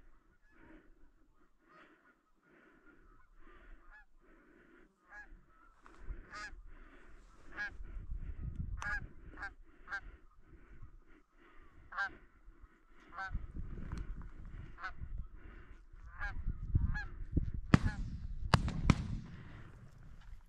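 Goose honking: short calls repeated about once or twice a second, getting louder after the first few seconds. Wind rumbles on the microphone in gusts, and a few sharp clicks near the end are the loudest moments.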